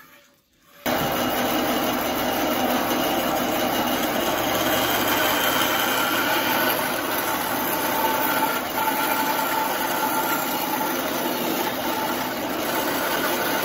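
Bandsaw ripping a fruitwood log lengthwise, the blade cutting steadily through the wood. The sound starts abruptly about a second in and holds steady after that.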